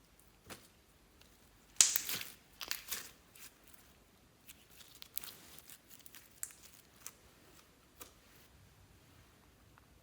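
Slime being worked by hand, making irregular crinkling and crackling noises, the loudest burst about two seconds in and a second cluster soon after, followed by scattered small clicks.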